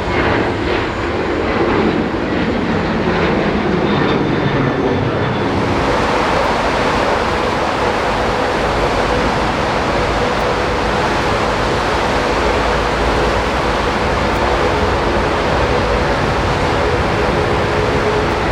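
Jet airliner engines running, a loud steady noise. About five and a half seconds in the sound changes abruptly and turns brighter, after which a faint steady whine runs under it.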